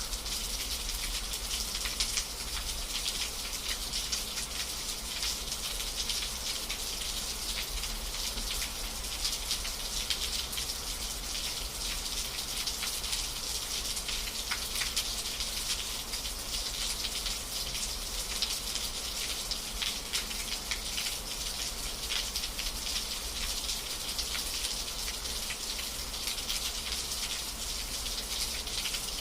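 Steady rain falling, an even hiss dotted with the ticks of many drops.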